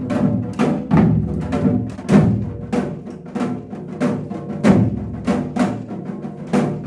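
Korean janggu (hourglass drums) beaten with sticks in a brisk, steady rhythm, about three strokes a second, for a janggu drum dance.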